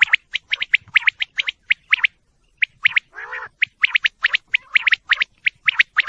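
Female common quail calling: quick clusters of short, high chirps, broken by a brief pause about two seconds in and a lower, raspy call about three seconds in.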